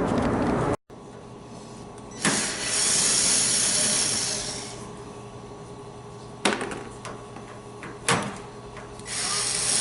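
Workshop noise while a commercial oven is taken apart: two sharp metallic knocks about a second and a half apart, and two stretches of hissing a couple of seconds long, over a steady low hum.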